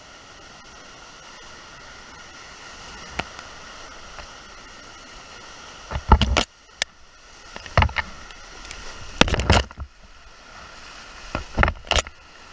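Steady rush of a flooded whitewater creek around a canoe, broken from about six seconds in by several loud splashes and knocks as the boat pushes through the current and overhanging brush.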